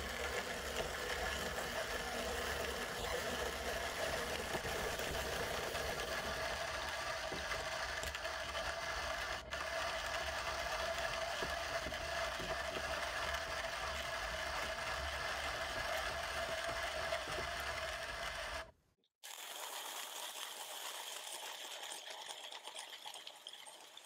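Hand-cranked coffee grinders with conical steel burrs grinding beans: a steady crunching, ratcheting grind with one sharp click about halfway through. After a brief break near the end comes a fainter, higher hiss.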